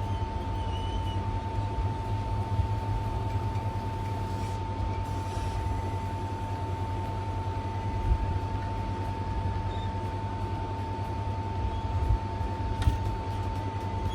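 Hot air rework station blowing steadily while reflowing the solder on a laptop's Type-C charging port, with a low hum and a constant thin whine.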